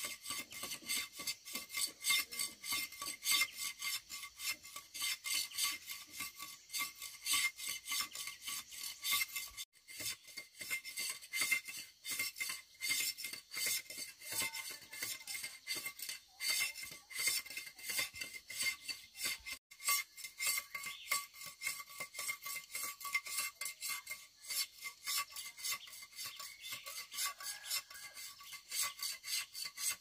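A steel knife blade scraping the rind off sugarcane stalks in quick, repeated strokes, several a second, with only brief breaks.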